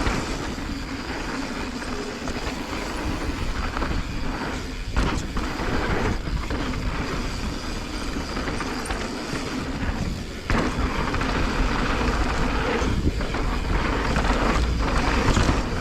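Mountain bike riding fast down a dusty, rutted dirt trail: steady tyre and wind noise with low rumble, and sharp knocks as the bike hits bumps.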